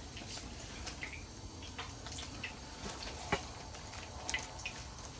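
Flour-coated bluegill fillets frying in hot oil in a skillet: irregular small crackles and pops of the oil, with one sharper knock a little over three seconds in.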